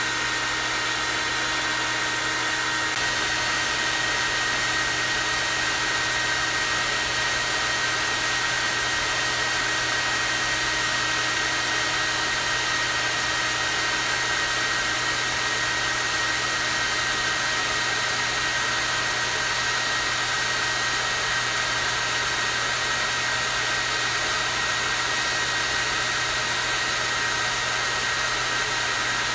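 Hair dryer running continuously on its high (strong-wind) setting: a steady rush of air with a high whine from the motor, unchanging in level.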